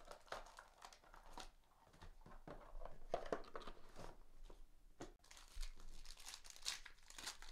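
Plastic wrapping being torn open and crinkled as a box of basketball trading cards is unwrapped, with a run of irregular crackles.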